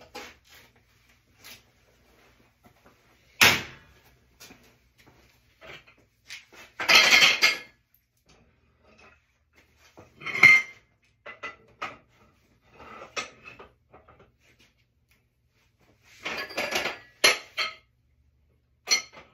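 Metal clanks and rattles from a Ridgid compound leverage wrench and a metal pipe being handled on the wrench's tripod stand: a series of separate knocks and short clattering runs, the loudest a sharp clank about three and a half seconds in, with longer rattles around seven seconds and from sixteen to seventeen and a half seconds.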